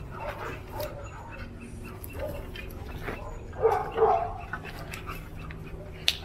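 German Shepherd-type dog barking twice in quick succession about halfway through, with light scattered clicks around it.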